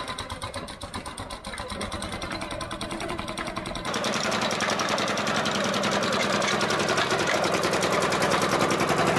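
Small 4-horsepower two-stroke engine running with a rapid, even firing beat, struggling under the load of the homemade half-track; the cause is a restrictive air filter. About four seconds in the sound jumps louder as the machine drives off.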